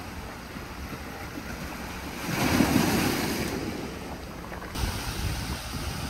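Small ocean waves washing onto a pebble beach, one wave surging loudest about two and a half seconds in, with wind buffeting the microphone.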